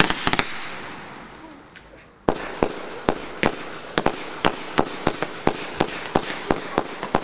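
Fireworks going off: a loud bang with a couple of quick cracks just after, fading away over about two seconds. Then, from about two seconds in, a rapid run of sharp reports, roughly three a second, as shots fire in quick succession.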